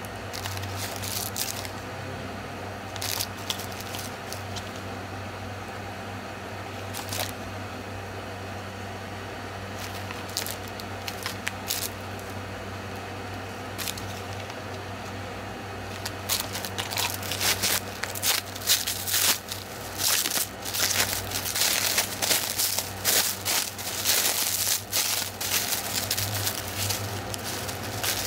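Thin plastic packaging wrap crinkling as it is handled. The crinkles come in scattered bursts at first, then run thick and louder through the second half while the wrap is pulled off a box.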